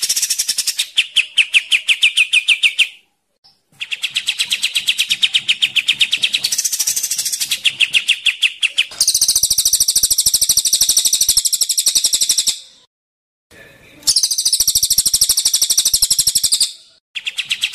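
Two cage songbirds, a cililin (crested jay) and a kapas tembak bulbul, trading long runs of fast, evenly repeated rattling notes. Two kinds of run alternate: a thinner, higher chatter and a fuller, brighter rattle, each lasting a few seconds with brief pauses between.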